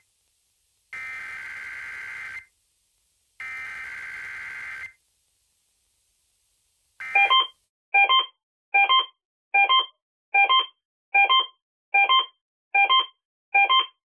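The last two of three Emergency Alert System SAME header bursts: buzzy digital data tones about a second and a half each, a second apart. After two seconds of silence, loud electronic alert beeps start from an EAS receiver, about one beep every 0.8 s, each a quick run of several pitches.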